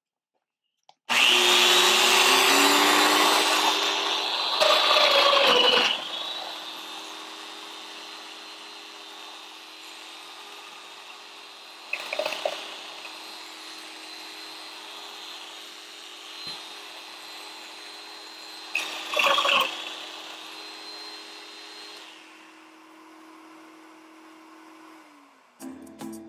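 A power tool switched on about a second in, with a Festool CT 15 dust extractor starting along with it through its auto-start. Both run loudly for a few seconds, then settle into a quieter steady whir with two short louder bursts. The sound winds down near the end.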